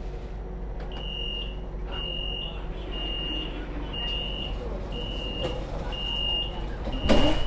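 A tram's electronic warning beeper sounds a high beep about once a second, seven times, over the steady low hum of the stationary tram. Just before the end there is a single loud thump.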